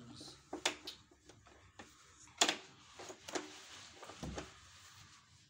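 Hard plastic clicks and knocks as the top cover of a Samsung canister vacuum cleaner is pressed and fitted back into place by hand. There are several sharp clicks, the loudest about two and a half seconds in, and a dull thump a little after four seconds.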